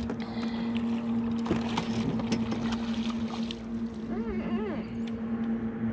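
Water splashing and short knocks as a catfish is netted beside a small boat, over a steady low hum.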